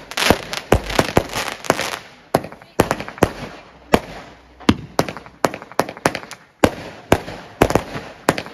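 Aerial fireworks bursting overhead: a rapid, uneven string of sharp bangs, about two or three a second, with crackling from the bursting stars between them.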